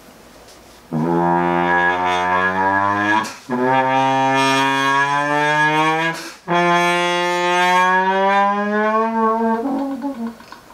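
Trombone blown in three long notes, each sliding slowly upward in pitch like an engine revving, imitating a supercar's exhaust note. There are short breaks for breath between the notes.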